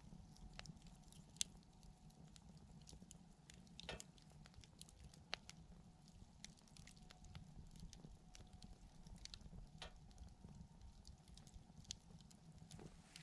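Wood campfire crackling faintly, with scattered irregular snaps and pops over a low steady rumble.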